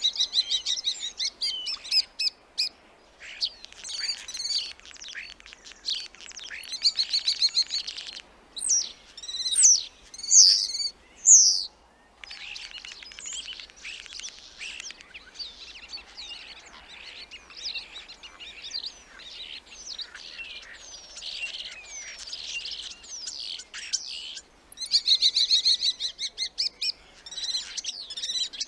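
Starling song: a rambling mix of whistles, chatter and clicks, with a run of loud sliding whistles about a third of the way through.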